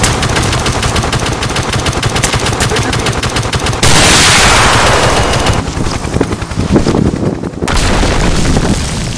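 Action-film sound effects. Rapid gunfire rattles for the first few seconds, then a loud rushing energy blast starts about four seconds in. Near the end comes an explosion with a deep rumble.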